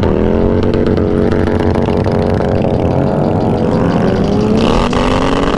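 Kawasaki ZX-6R 636 inline-four engine running under way with wind noise. Its pitch drops sharply at the start as the revs fall, holds steady, then slowly climbs over the last couple of seconds as the bike accelerates.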